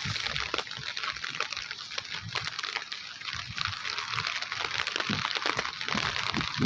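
Rain falling: a steady hiss of many small drops.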